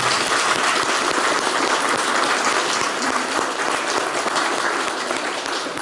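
Applause from the audience and cast: many people clapping steadily together, easing slightly near the end.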